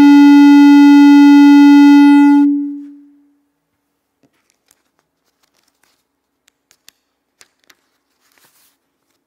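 Microphone feedback howl through the church PA: a single loud steady tone that swells up, holds at full level for about two and a half seconds, then dies away. A few faint clicks and taps follow.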